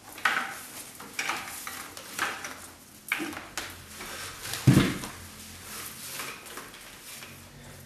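Fiber rush (twisted paper cord) swishing and rustling as the strands and coil are pulled over, under and around a chair's seat rails in irregular strokes, with one dull thump a little past halfway.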